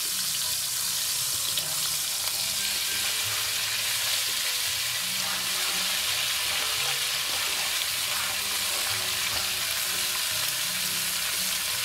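Peeled shrimp, ginger slices and dried hot peppers frying in hot oil in a pan: a steady, even sizzle.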